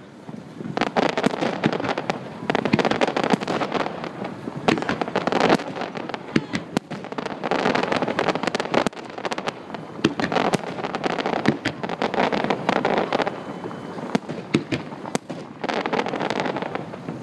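Aerial fireworks display: many sharp bangs and crackles coming in dense volleys, with brief lulls between them.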